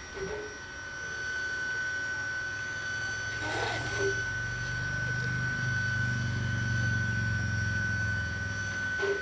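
Double-headed steam locomotives standing on the track: a steady high whine, with a low rumble that builds from about a second in, and a short burst of hiss about three and a half seconds in.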